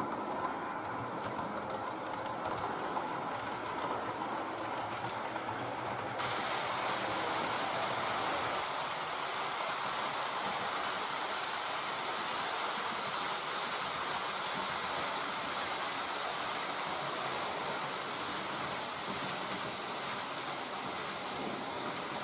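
H0-scale model train running along the layout track, a steady whirring and rolling wheel noise that grows a little louder and brighter about six seconds in.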